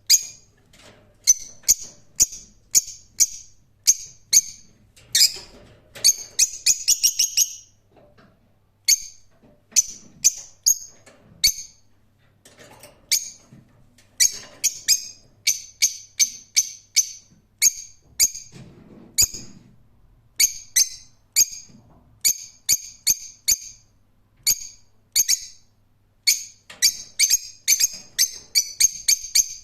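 Lovebird calling with short, shrill chirps, mostly one at a time with gaps of about a second, breaking twice into quick runs of several chirps.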